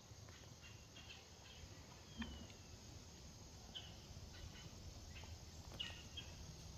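Quiet woodland ambience with a few faint, scattered bird chirps and one soft click about two seconds in.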